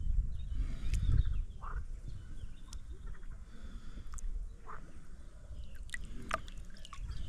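Shallow water stirring around a hand holding a large wels catfish for release, with a low rumble of handling on the microphone in the first second and a few short, faint chirps.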